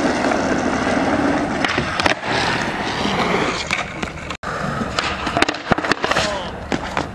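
Skateboard wheels rolling steadily on asphalt, then several sharp clacks of the board hitting the pavement about five to six seconds in as the board gets away from the skater.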